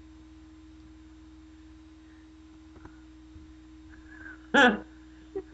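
A faint steady hum on one tone, with a single brief, loud, rising squeal of a voice about four and a half seconds in.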